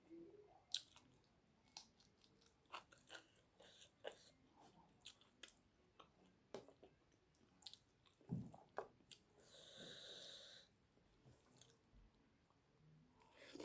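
Close-up eating sounds: chewing with wet mouth clicks and smacks, and a hiss lasting about a second, about ten seconds in.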